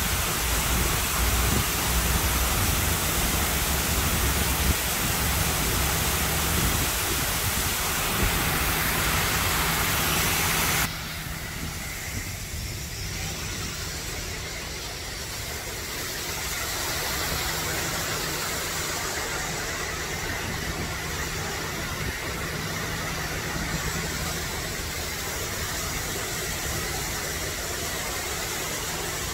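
Steady rush of water falling down the sheer walls of a 64-foot fountain wall into the pool at its base. About eleven seconds in, the sound drops suddenly quieter and duller, then carries on steadily.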